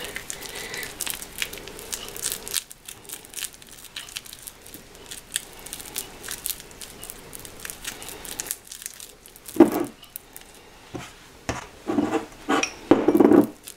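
Glue-coated hands kneading torn bread and tacky glue into a sticky dough in a bowl: soft wet squishing with many small crackles, and a few louder squishes in the last four seconds.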